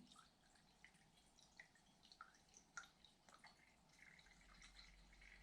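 Near silence with faint, scattered drip-like ticks as liquid fuel goes into a 1953 Coleman lantern's tank. A faint steady hum comes in near the end.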